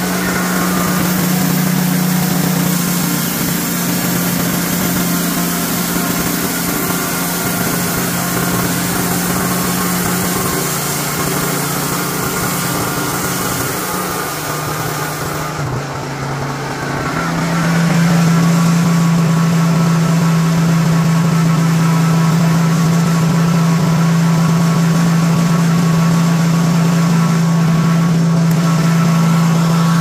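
Wood-Mizer LT40 bandsaw mill's Honda gas engine running steadily. About a third of the way in its pitch drops a little, and a little past halfway it comes back up louder and holds.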